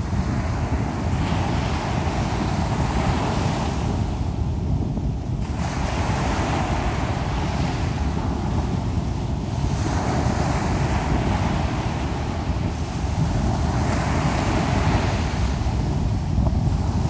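Small ocean waves breaking and washing up a sandy beach, the hiss of the wash swelling and fading every few seconds. Wind buffets the microphone with a steady low rumble underneath.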